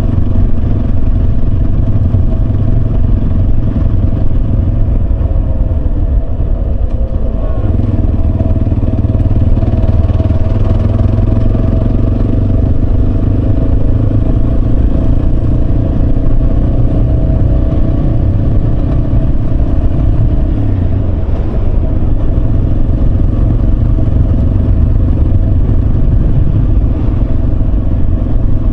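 Yamaha Serow 250's air-cooled single-cylinder four-stroke engine running steadily while riding, over a heavy low rumble. Its pitch shifts slightly about a quarter of the way in and again after about twenty seconds.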